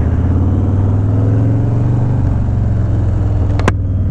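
2020 Harley-Davidson Low Rider S's Milwaukee-Eight V-twin running at low, steady revs through a freshly fitted Two Brothers Racing 2-into-1 exhaust while the bike rolls slowly along. A single sharp click about three and a half seconds in.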